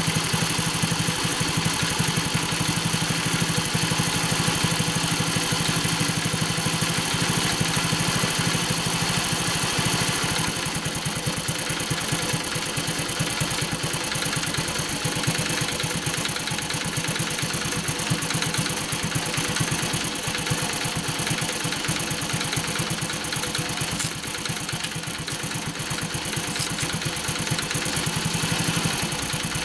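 Honda Super Cub 50's small air-cooled single-cylinder four-stroke engine idling steadily, run while its valve tappets are being checked for a ticking noise.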